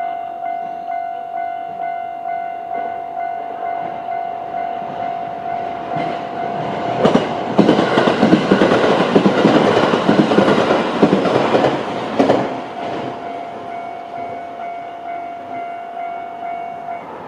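Japanese level-crossing warning bell ringing with a steady electronic tone, pulsing about twice a second. From about six to thirteen seconds in, a JR 701-series electric train passes over the crossing, its wheels clacking over the rail joints. The bell stops near the end.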